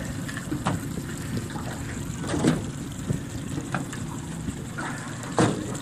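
Sea water lapping and sloshing against a small boat's hull, with a few short knocks.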